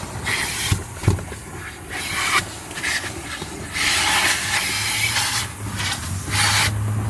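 Car wash vacuum hose sucking air, its nozzle rubbing and scraping over the car's interior carpet and seats. The hiss rises and falls as the nozzle is pressed down and lifted, over a low hum that comes in near the end.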